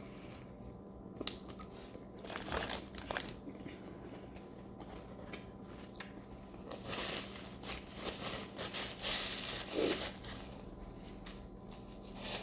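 Close-up eating sounds: chewing a bacon cheeseburger, with scattered crinkles and rustles in short bunches, mostly a couple of seconds in and again past the middle.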